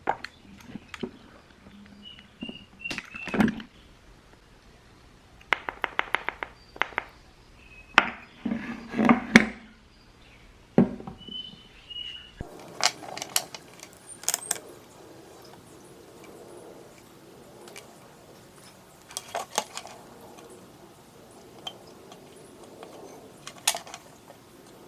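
Short clinks, clicks and knocks of small hard objects being handled, coming in clusters with pauses between them.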